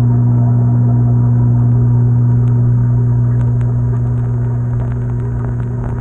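Washing machine drum spinning, heard from a camera inside it: a loud, steady deep motor hum over a low rumble. The hum eases off slightly in the last few seconds as a few faint ticks begin.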